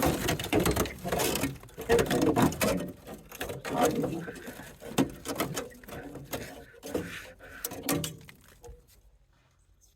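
Irregular knocking and clattering of hand tools and metal parts on the car, stopping about nine seconds in.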